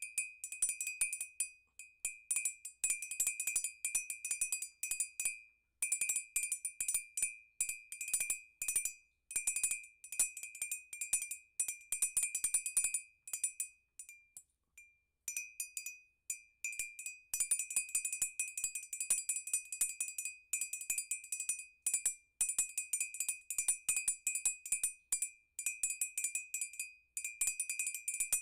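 Music played on a glass instrument: rapid repeated strikes on glass ringing at one high note, with a brief pause about halfway through.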